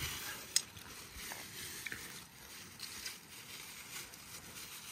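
Chicken cooking over a campfire: a steady sizzling hiss with a few sharp crackles.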